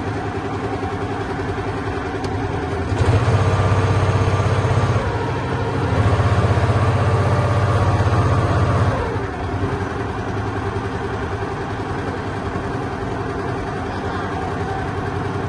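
Boat engine running steadily as the wooden long-tail boat moves along the canal. It grows louder twice, from about three seconds in to about five, and again from about six seconds to about nine.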